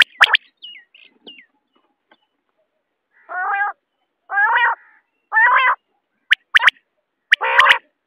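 Common quail calling. A few sharp, clicking notes and faint falling whistles come first, then three raspy, nasal calls about a second apart. Two more sharp notes and a louder, harsher call follow near the end.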